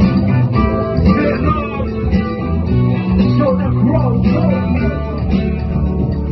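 Music track with a prominent guitar, playing at a steady, loud level.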